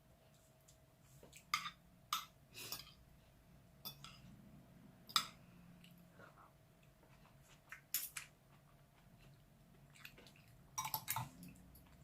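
Cutlery knocking and clinking against dishes in scattered sharp taps, a few seconds apart with a quick cluster near the end, while someone eats a meal of soup with bones.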